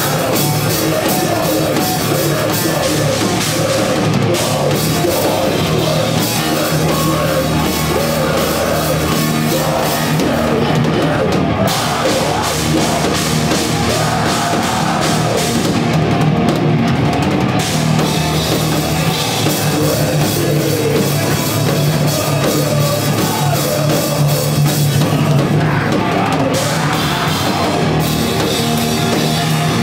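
Thrash metal band playing live and loud: fast drum kit with crashing cymbals over distorted electric guitars and bass. The cymbals stop for short moments a few times.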